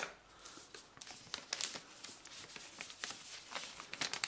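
Thin protective plastic film being peeled off a DJI Mic charging case: a run of soft, irregular crackles and crinkles, with a sharper tick near the end.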